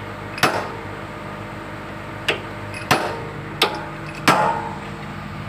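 A hammer striking steel five times at uneven intervals, each blow ringing briefly, while driving in an excavator bucket's pin and bushing. A steady low hum runs underneath.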